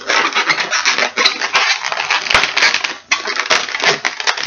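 Inflated yellow 350 latex modelling balloon being handled and twisted into pinch twists: continuous rubbing and crackling of latex under the hands, with many small sharp squeaks and clicks and a short lull about three seconds in.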